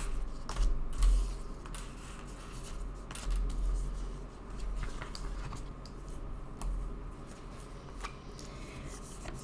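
Tarot cards and small objects being handled on a tabletop: scattered light clicks and rustles, with low thumps.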